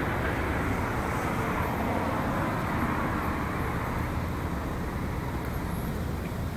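A car driving past on the street, with steady road traffic noise that slowly fades as it moves away.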